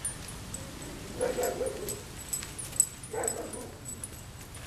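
A dog vocalizing twice, short barks or whines about a second in and again about three seconds in.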